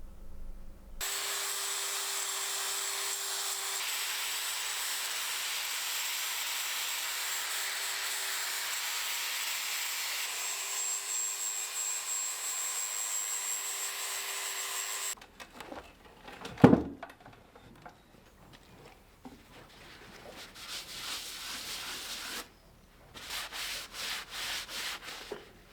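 Angle grinder with an abrasive disc grinding the edges of a steel anvil: a steady hiss for about fourteen seconds that cuts off suddenly. A single loud knock follows, then a quick run of short rasping strokes near the end.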